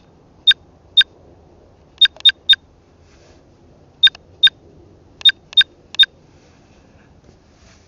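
Short electronic beeps from a camcorder's buttons, about eleven of them, each one brief and at the same pitch, coming in irregular groups like keys being pressed. They stop about six seconds in, leaving a faint hum.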